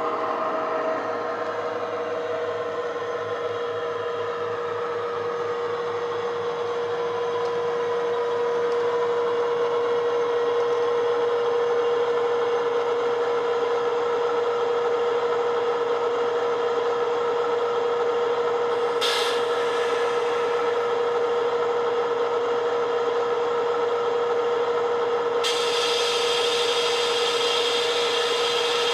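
Sound-fitted Bachmann Class 70 model playing a recorded Class 70 diesel engine through its EM1 speaker, a steady drone with a strong constant note that grows louder about eight seconds in. A brief hiss comes in about two-thirds through, and a steadier hiss joins near the end.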